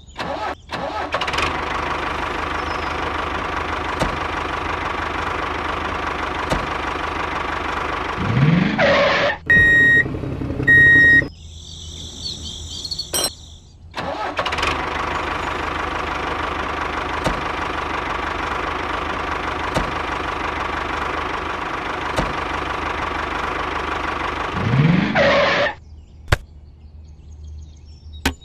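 Tractor engine running steadily. It rises in pitch and cuts off twice, once about a third of the way in and again near the end. Between the two runs come two short beeps and a brief hiss.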